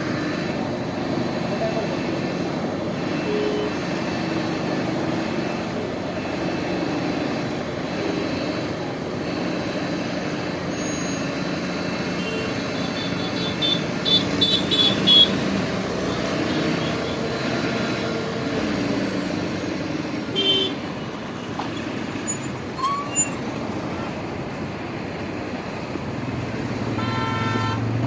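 Road traffic: vehicle engines running steadily, with horns honking in short blasts several times, a cluster about halfway through and more near the end.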